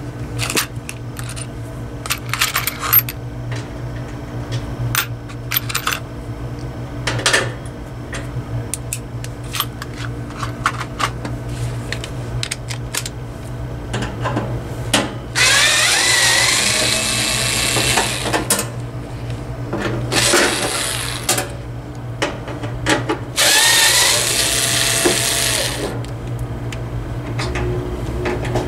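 Clicks and clatter of tools and screws being handled, then a cordless electric screwdriver running twice for about three seconds each, backing screws out of a sheet-metal heater case.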